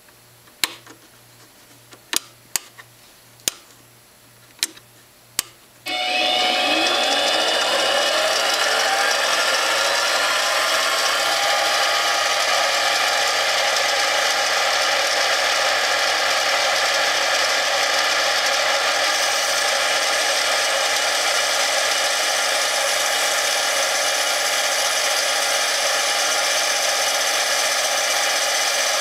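Harbor Freight mini lathe: a few sharp clicks, then about six seconds in the motor starts with a whine that rises over several seconds as the spindle speeds up. It then runs steadily at speed while the tool turns aluminium stock.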